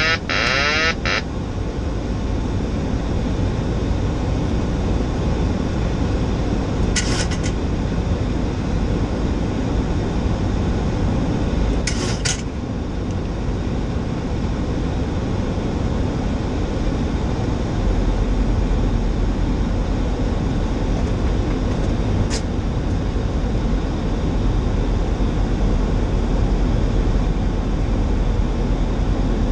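Steady cockpit noise of a Boeing 737-800 in flight on approach, a constant rush and drone. Three short bursts of hiss are spread through it, and the low rumble grows a little louder about two thirds of the way through.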